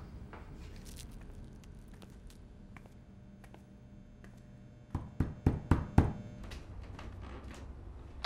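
Quiet room tone, then about five sharp knocks in quick succession on a door, about five seconds in, followed by a few faint clicks.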